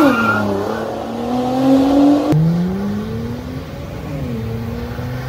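Car engines accelerating, their pitch climbing steadily, with an abrupt cut about two seconds in to another engine rising again as it pulls away.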